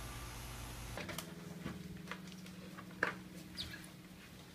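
Light taps and clicks from two dogs in plastic cone collars jostling on a hardwood floor, over a steady low hum.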